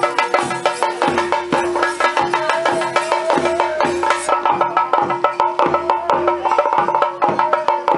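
Theyyam ritual percussion: chenda drums beaten in fast, even strokes. Under them is a steady held tone, and a higher tone wavers up and down over them.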